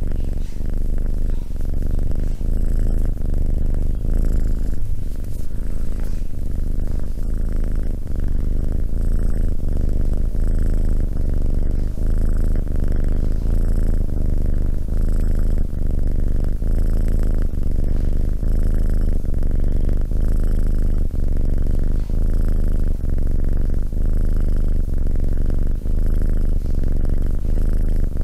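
Tabby kitten purring loudly and steadily, right up against the microphone. The purr changes a little about once a second as the kitten breathes in and out.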